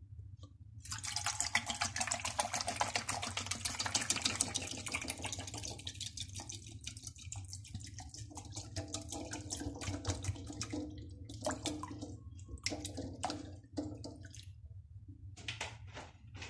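Water poured from a plastic bottle into a non-stick pan over a dozen raw eggs, splashing steadily as the pan fills. Near the end the pour dwindles to a few separate splashes and drips.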